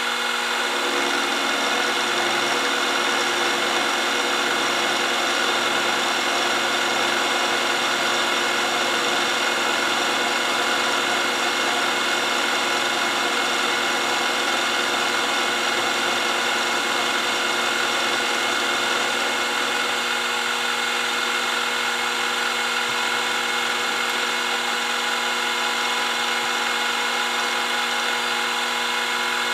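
Mini milling machine running steadily, its spindle motor whining as a small end mill cuts a shallow groove in a metal jaw piece on a light pass of about 5 thou.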